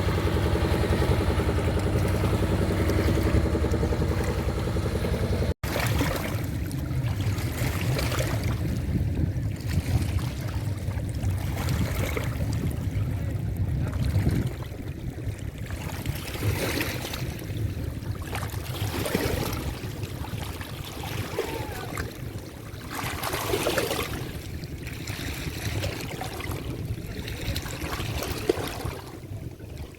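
A boat's engine running steadily for the first few seconds. After an abrupt cut it gives way to an uneven rush of water noise that swells and fades every second or two.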